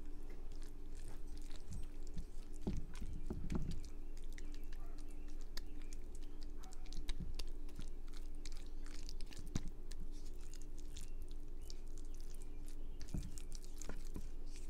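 Rubber spatula spreading a thick, wet shredded-chicken mixture in a baking pan: soft squishing and scraping with scattered clicks against the pan, most busily about three seconds in. A faint steady hum runs underneath.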